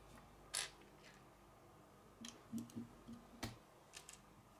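Faint, scattered clicks and light taps of small plastic LEGO pieces being handled and pressed onto a brick-built figure, about seven or eight in all, the strongest about half a second in and past the three-second mark.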